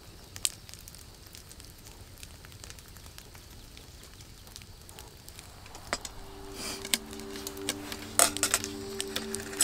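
Faint crackling sizzle of okonomiyaki frying in a pan on a camp burner. About six seconds in, background music starts. Near the end come several sharp metallic clicks from kitchen scissors cutting the okonomiyaki on a stainless steel plate.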